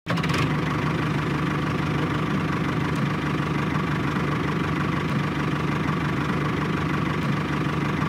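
A tractor engine running steadily at an even idle-like pace, cutting in suddenly.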